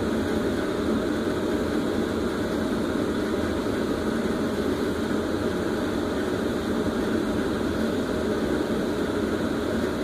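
Home HVAC air handler's blower running on its high-speed tap: a steady, unbroken rush of air and motor hum. The owner says he cannot turn the airflow any higher and still has an airflow problem.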